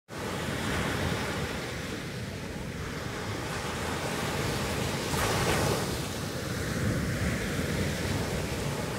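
Sea surf washing onto a beach, with wind. A louder wash of surf comes about five seconds in.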